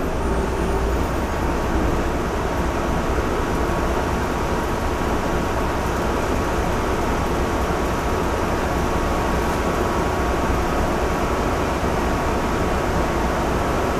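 Orion V CNG transit bus heard from on board, its engine running steadily with road and cabin noise and a faint steady whine.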